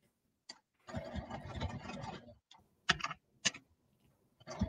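Sewing machine stitching in a short run of about a second and a half, then a couple of sharp clicks, then stitching again near the end.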